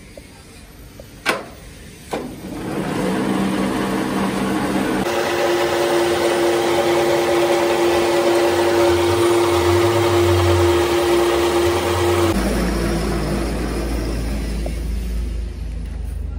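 Metal lathe running with its chuck spinning a steel excavator bucket pin: a steady machine sound with a strong, even whine through the middle. It drops to a low hum near the end. Two sharp knocks come about a second and two seconds in, before the lathe gets going.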